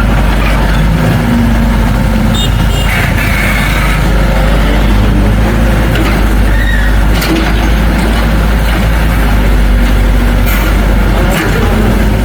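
Heavy diesel earthmoving machinery (bulldozer and dump trucks) running steadily with a deep low rumble, with a few short sharp knocks.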